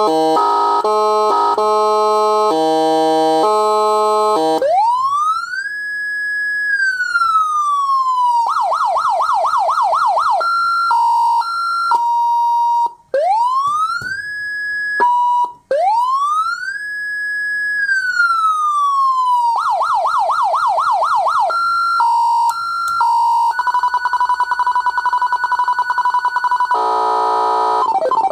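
A 118K 200-watt electronic siren sounding through its speaker and switching between tones. After a few seconds of stepped, tune-like pitches it gives a slow wail that rises, holds and falls, then a fast yelp, short steady beeps, another wail and yelp, and a rapid pulsing tone near the end.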